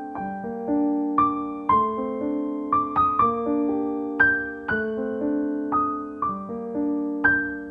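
Background piano music: a slow melody of single notes over held chords, a new note struck about every half second and each one fading away.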